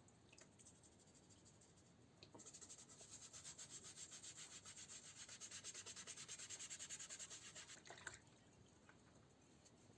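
Hand sanding: sandpaper rubbed back and forth in quick, even strokes, several a second, starting a couple of seconds in and stopping about two seconds before the end.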